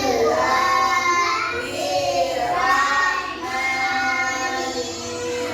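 Children chanting an Arabic prayer recitation in unison, sung in a drawn-out, sing-song melody with long held notes.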